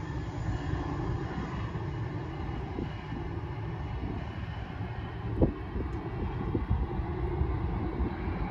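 Distant regional jet with rear-mounted engines running as it moves along the airfield: a steady low rumble with a fainter engine whine that thins out in the first second. A single brief knock about five and a half seconds in.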